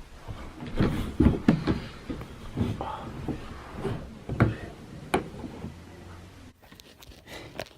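Irregular bumps, knocks and rustling of a person getting into a hiding place, quieter near the end.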